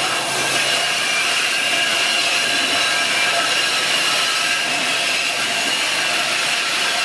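Loaded freight train wagons rolling past, their steel wheels grinding and squealing against the rails in a steady screech with several held high tones.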